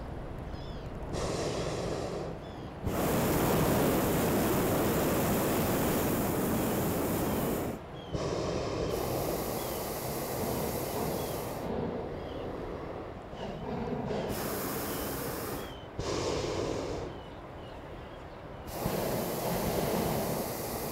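Hot air balloon propane burner firing in repeated blasts, a loud rushing hiss that starts and stops abruptly, the longest blast about five seconds.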